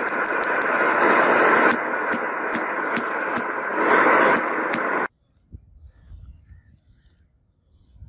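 Hand hammer striking a red-hot steel bar on a steel anvil block, sharp blows about two a second over a loud rushing noise. The hammering and the noise cut off suddenly about five seconds in, leaving near quiet.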